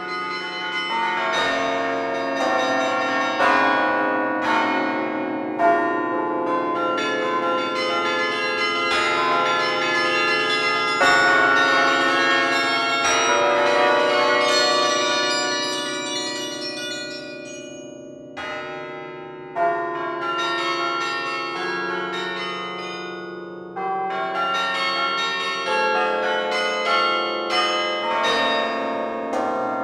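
Carillon bells played from the baton keyboard: quick runs and chords over long-ringing low bells. The music thins briefly a little past halfway, then builds again with fresh strikes.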